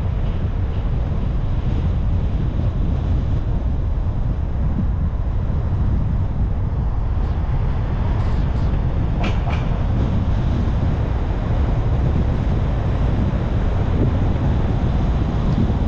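Steady low rumble of a car on the move: road and wind noise, with a couple of brief high squeaks about nine seconds in.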